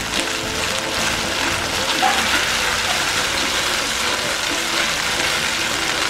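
Butter melting into a bread-and-water gravy base, sizzling in a metal wok over a gas flame, with a spoon stirring and scraping through it. The sizzle is a steady hiss throughout.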